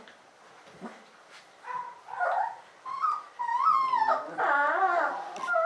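Alaskan malamute puppies whimpering and whining. Short high cries start about two seconds in. They turn into longer wavering whines that rise and fall near the end.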